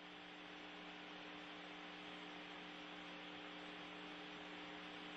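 Faint steady hum made of a few fixed tones over a soft hiss.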